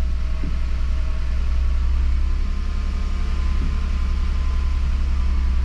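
Renault Clio 0.9-litre three-cylinder turbo petrol engine idling steadily just after start-up, freshly filled with oil and with oil pressure up.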